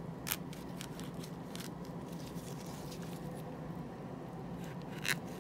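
Serrated knife scoring the skin of a ripe prickly pear held in gloved hands: faint scratchy cutting sounds, with two sharper crisp ones just after the start and near the end, over a low steady hum.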